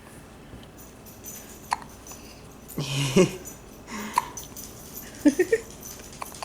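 Baby hiccuping: a handful of short hiccups about a second apart, some with a small catch of voice.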